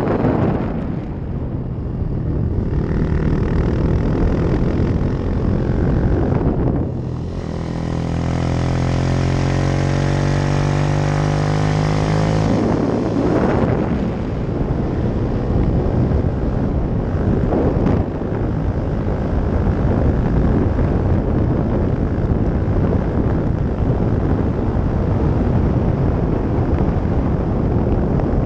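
Yamaha YS 125 single-cylinder four-stroke motorcycle with a LeoVince exhaust, riding under throttle over a rush of wind noise. From about seven to thirteen seconds in, the engine note climbs steadily, then breaks off briefly before carrying on.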